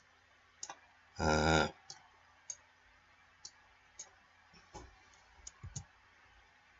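Faint computer mouse clicks, about ten, spaced irregularly, with a short vocal sound from a person a little over a second in that is louder than the clicks.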